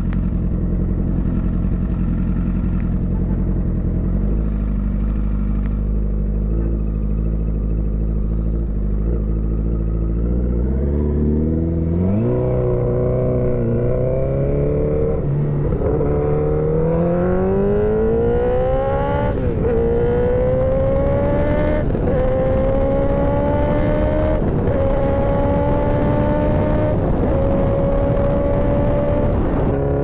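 Motorcycle engine running at a steady low speed, then, about a third of the way through, accelerating away, its pitch climbing and dipping briefly at each upshift through several gears.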